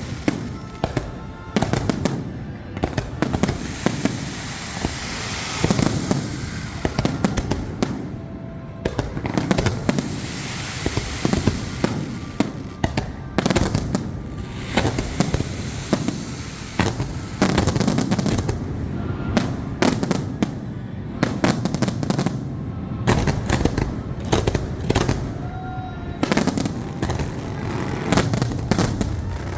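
Fireworks finale: a dense, rapid barrage of aerial shell bursts and crackling, bang after bang with hardly a gap, over a constant rumble.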